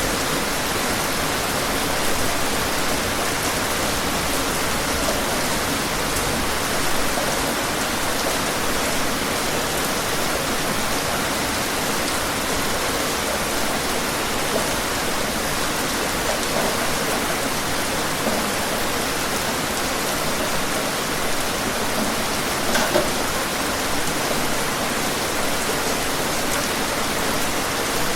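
Rain falling outdoors: a steady, even hiss with a few scattered louder drops, one a little more prominent late on.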